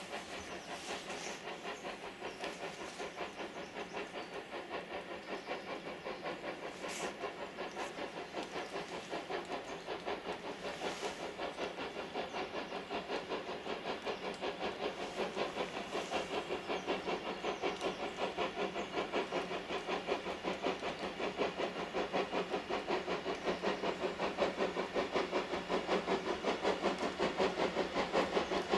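Steam locomotive working steadily, its exhaust beats at about four a second growing gradually louder as it approaches.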